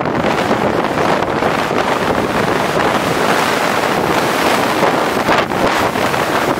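Steady loud rushing noise of wind blowing across the microphone.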